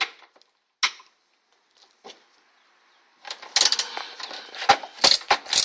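Hand tools working on car fasteners: a few separate sharp clicks, then from about three seconds in a dense, irregular clatter of metal clicks and knocks.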